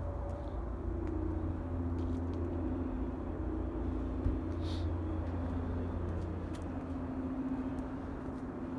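Steady low outdoor rumble with a faint wavering hum over it, and a brief high chirp about halfway through.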